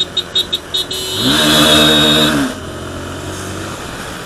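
Motorcycle engine heard from the rider's seat. It opens up for about a second and a half as the bike accelerates, the pitch climbing and holding, then drops back to a steady, quieter run. A rapid string of short high beeps sounds during the first second.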